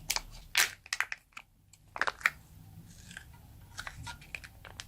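Plastic packaging being handled: short, irregular crinkles and clicks, the loudest about half a second in and again around two seconds.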